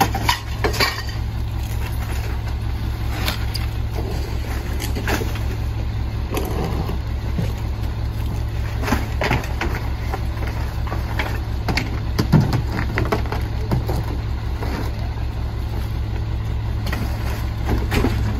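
Mack MR garbage truck's diesel engine idling steadily, with scattered thumps and clatter as trash bags and a can are tipped by hand into the McNeilus rear loader's hopper.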